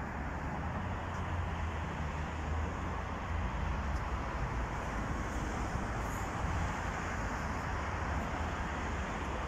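Steady city traffic noise: an even wash of road sound with a low rumble underneath.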